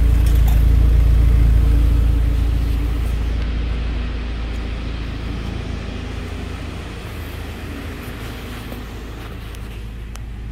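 A 2000 Toyota Camry's 2.2-litre four-cylinder engine idling steadily, heard first as exhaust rumble at the tailpipe. The sound fades over the first few seconds, then settles at a lower steady level.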